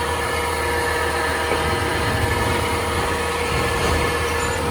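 A motor running steadily, with a constant hum that does not change.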